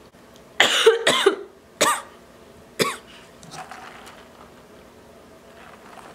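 A young woman coughing four times in quick succession over the first three seconds, then faint sipping through a drinking straw.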